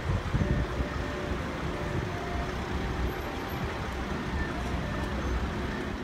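Road traffic ambience at an airport terminal kerbside: a steady wash of vehicle noise with a low rumble.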